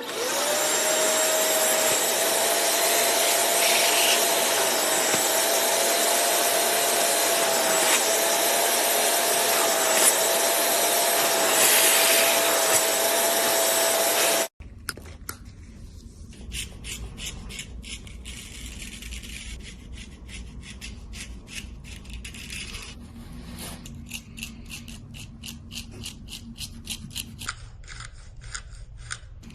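A motorised tool spins up and runs steadily with a loud hiss and a constant hum for about fifteen seconds, then stops abruptly. After that come quieter rapid clicking and scraping sounds.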